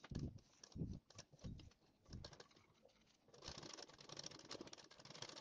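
A few soft low thumps, then a sewing machine stitching a seam, with fast, steady ticking that starts about three and a half seconds in.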